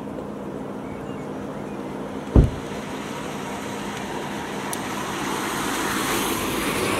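Outdoor ambience with a motor vehicle on a nearby road, its noise swelling over the last few seconds as it comes closer. A single low thump about two seconds in.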